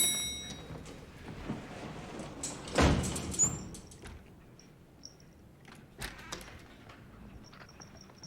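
Door sounds: a sharp metallic latch click with a brief ring at the start, then a heavier door thud about three seconds in, followed by a few lighter knocks.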